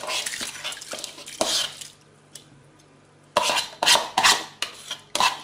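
A metal spoon scraping washed yellow lentils and rice out of a plastic bowl into a pot of water, with scrapes and clicks at first, a short pause, then a cluster of sharp taps of the spoon against the bowl and pot about three and a half seconds in.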